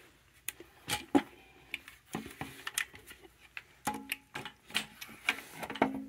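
Irregular metal clicks and clanks from an early 1930s Hoover 925 commercial upright vacuum cleaner being handled and turned over, not running. A few of the knocks ring briefly.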